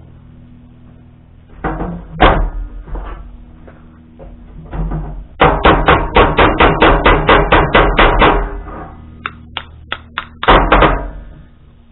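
Rapid hammering on a Wood-Mizer log clamp part to drive it out: a quick run of about twenty blows at roughly seven a second, with scattered single knocks before and after.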